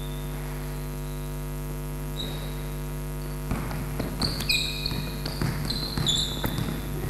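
Steady electrical mains hum throughout. From about halfway through, a basketball is dribbled on the wooden court, with the bounces coming as irregular thuds mixed with short high sneaker squeaks from the players cutting and defending.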